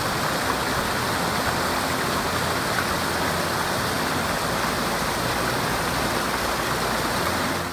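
Mountain river rushing over rocks in a small rapid: a steady, even rush of water.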